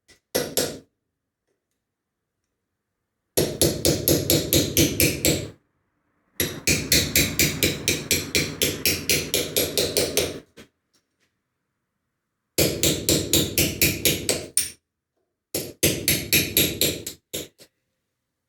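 Rapid, even hammer knocks on metal, about five strikes a second, in four runs separated by short pauses.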